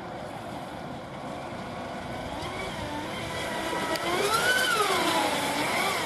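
Electric RC speedboat running at speed on 4S/6S LiPo power, its motor whine rising and falling in pitch as it turns and passes, growing louder in the second half.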